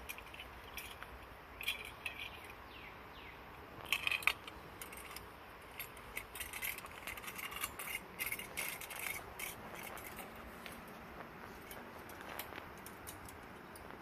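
Irregular small clinks, rattles and clicks of gear being handled, with a cluster about four seconds in and a busier run in the middle.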